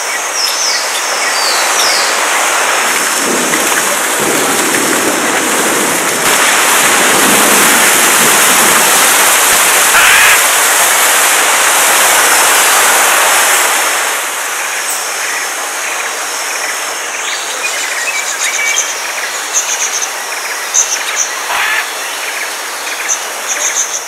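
Rain and rushing water in the rainforest: a loud, steady hiss that swells for several seconds in the middle. Short, high bird chirps come through over it near the start and again in the second half.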